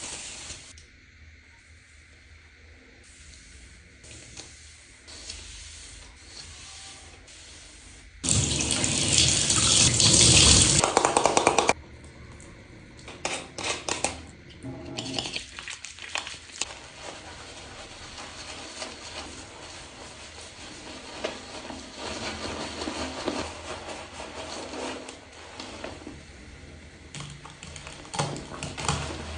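Water running and splashing while hair is washed, with a loud stretch of heavily running water starting about eight seconds in and lasting about three and a half seconds, followed by shorter splashes and rubbing noises.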